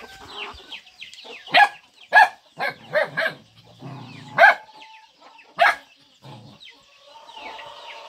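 A young dog barking, several short sharp barks spread over a few seconds, with small birds chirping faintly in the background.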